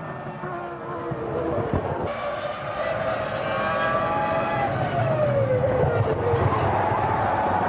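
Formula One cars' V10 engines running at high revs, growing steadily louder, with one engine's pitch sliding down about five seconds in.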